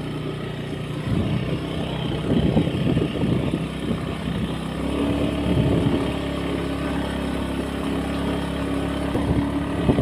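Small motorcycle engine running as it rides over a rough dirt track, with uneven rattly noise through the first half and a steadier engine note from about halfway.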